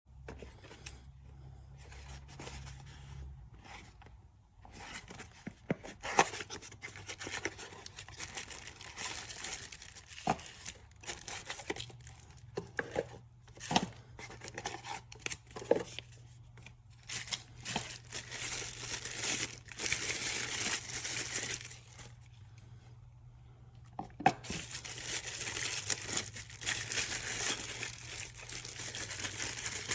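Product packaging being torn open and crinkled by hand, with irregular rustling and scattered sharp clicks and knocks of handling.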